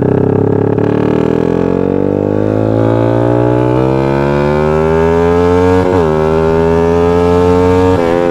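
Yamaha Exciter motorcycle with a 68 mm big-bore kit, its single-cylinder four-stroke engine accelerating hard under load. The engine note rises steadily for about six seconds, dips briefly at an upshift, climbs again, then drops sharply near the end.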